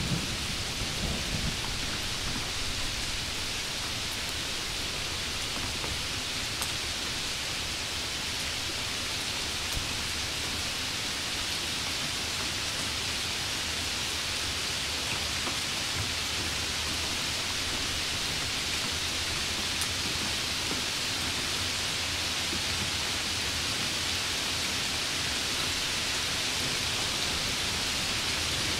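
Steady rain falling, an even hiss, with a low rumble around the start.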